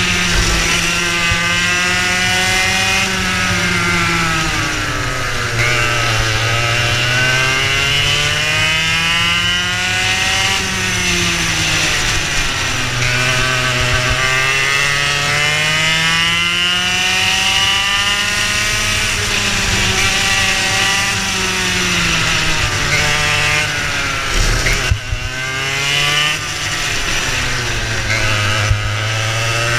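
Racing kart engine heard from on board at full racing pace, its pitch climbing as it accelerates along the straights and dropping as it slows for the corners, again and again, with a steady hiss of wind over it. A few sharp knocks come late on.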